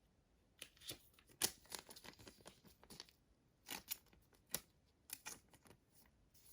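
Clear acetate trading cards being handled and slid off a stack one by one. Faint, irregular clicks and short scraping slides of card against card, a little more than a dozen over about five seconds.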